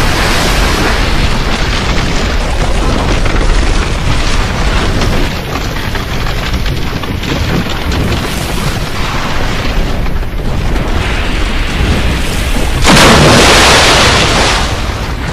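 Churning surf and rough sea where lava pours into the ocean, with wind buffeting the microphone. A louder rush of about two seconds comes near the end.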